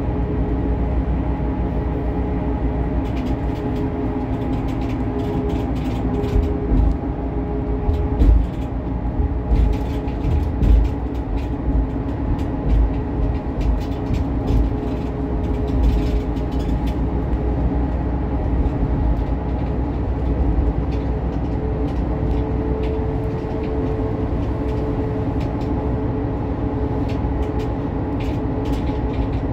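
Cabin noise of a Kravtex-Kühne Credo Econell 12 low-floor diesel bus on the move: a steady low rumble of engine and road with a faint drivetrain whine. Scattered rattles and clicks come from the body and fittings, with a run of heavier bumps about a third of the way in.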